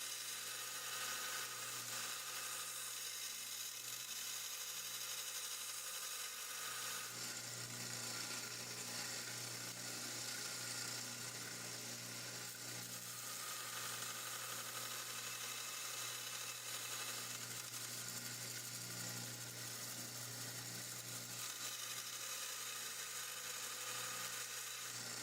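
Belt sander with an 80-grit belt running steadily, grinding metal knife bolsters down flush with the liners: a constant motor hum under a steady abrasive hiss.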